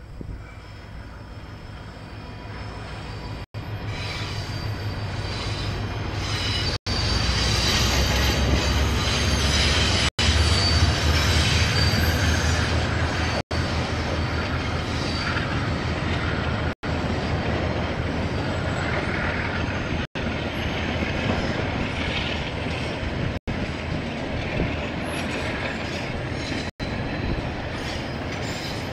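KiwiRail diesel train passing: the sound builds as it approaches, is loudest with a deep engine rumble about seven to twelve seconds in, then carries on as a steady rolling rumble of wagons with high squealing from the wheels. The recording cuts out for an instant roughly every three seconds.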